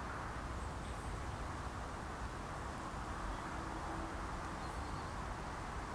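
Steady outdoor background noise with a low rumble, with a few faint high chirps scattered through it.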